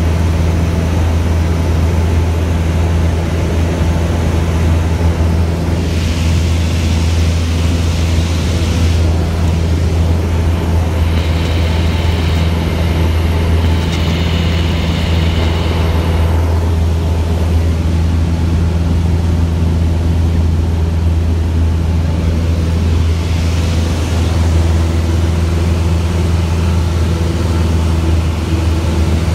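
Single-engine Cessna's piston engine and propeller droning steadily in flight, heard inside the cabin as a loud, even low hum.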